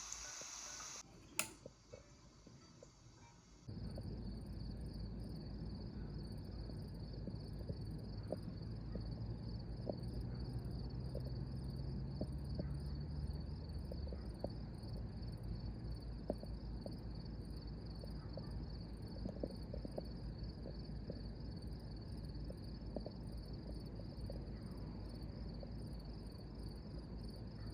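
Insects chirping in a steady, evenly pulsing high trill that sets in about four seconds in, over a low background rumble. Before that, music stops about a second in, followed by a single click.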